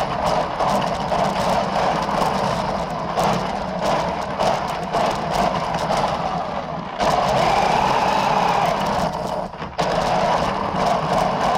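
Small electric motor of a toy RC drift car running, with many small clicks and knocks. About seven seconds in it gets louder and its whine rises and falls.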